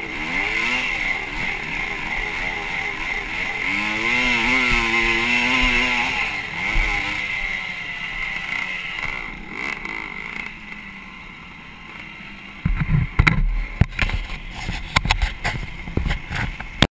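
Motocross dirt bike engine revving up and down as it rides the track, the pitch rising and falling, then easing off and quieting as the bike slows. Near the end, a run of loud, irregular knocks and thumps.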